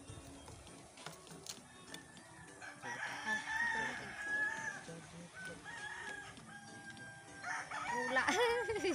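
A rooster crowing: one long crow starting about three seconds in, with another pitched call near the end.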